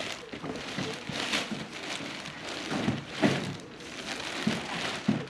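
Rustling and crinkling in irregular bursts as clothes, linens and bags are handled and sorted.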